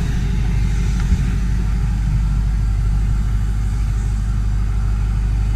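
A 6.0 Powerstroke V8 turbo-diesel in a 2005 Ford F-250 idling steadily through a 5-inch straight-piped turbo-back exhaust, giving a low, even rumble.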